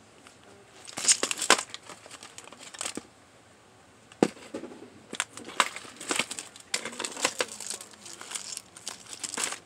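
Plastic packaging of false nail tips crinkling and rustling, with sharp clicks of plastic cases, as the packs are handled and shifted in a cardboard box. The crackles come in irregular clusters, with a brief lull about three seconds in.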